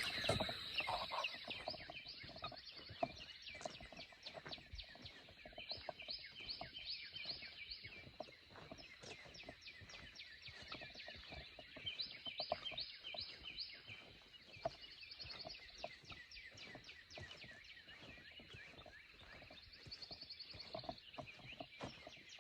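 Faint dawn chorus of songbirds: quick trills and chirps repeated over and over, with a thin steady high tone. No turkey gobble.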